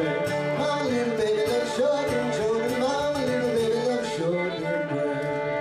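A live folk band playing: a fiddle carrying the melody over a strummed acoustic guitar.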